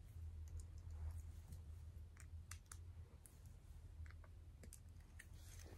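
Faint, scattered clicks of small plastic LEGO minifigure pieces being handled and snapped together, over a low steady hum.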